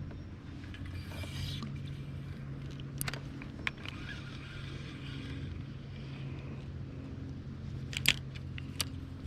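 A small motor on a fishing boat humming steadily, with a few sharp clicks and knocks, the loudest about eight seconds in.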